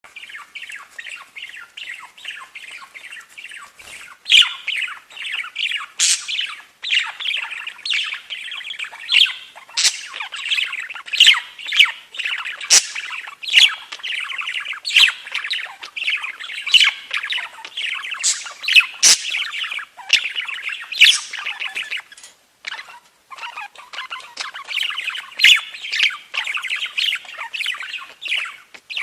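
Budgies chattering and warbling continuously, broken by loud, sharp squawks and chirps, with a brief lull near the end. A few sharp knocks sound in between.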